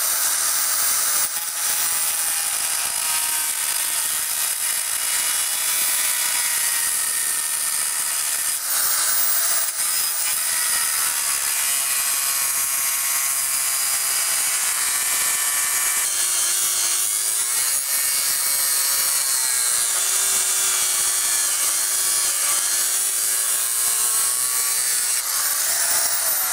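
Electric angle grinder with an abrasive disc cutting through a rusted steel head bolt on a cast-iron cylinder head, a loud steady grinding whine. The pitch jumps up briefly around nine seconds in and again near the end as the disc comes free of the cut.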